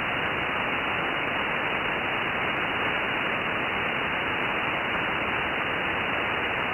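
Shortwave receiver's audio in upper sideband on the 12-metre band: a steady, even hiss of static with no signal in it. This is the raised noise the station owner blames on local consumer RFI.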